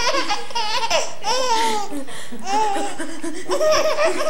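Baby laughing in several high-pitched bouts, the pitch sweeping up and down within each.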